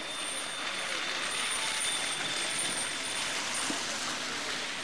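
Street noise with vehicles: a steady hiss of traffic on a snowy village street, with a faint high steady whine through the first few seconds.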